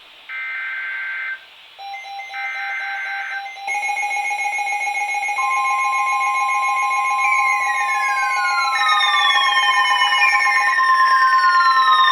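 Emergency alert for a flash flood warning: the last two short, screechy digital SAME header bursts, ending about three seconds in, then steady electronic alert tones, one low and a second higher one joining partway, with repeated falling whistle sweeps layered on top from about seven seconds in, growing louder.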